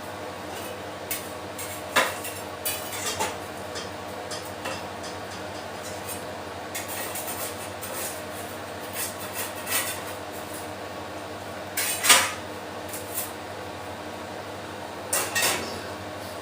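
Kitchen clatter: utensils and dishes knocking now and then, loudest about twelve seconds in, over a steady background hum.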